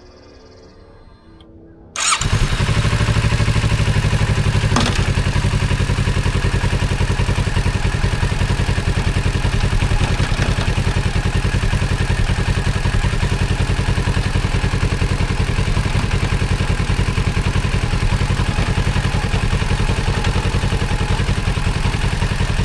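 A 2024 Kawasaki Z650's parallel-twin engine starting about two seconds in and then running steadily at idle, with one brief knock a few seconds after it starts.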